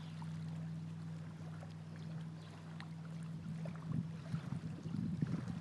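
Small dog wading in shallow lake water at the shore, the water lapping and sloshing around its legs, with heavier splashing in the last second or two. A steady low hum runs underneath.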